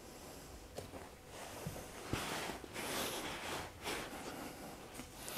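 Faint rustling of a heavy cotton judogi and a body shifting on a tatami mat as a person gets down into a forearm plank, with a few soft taps.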